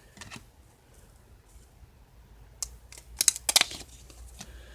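Stuck-together baseball cards from a 1995 Pinnacle pack being handled and pulled apart. Quiet shuffling gives way to a few sharp snaps and crackles of card stock past the middle.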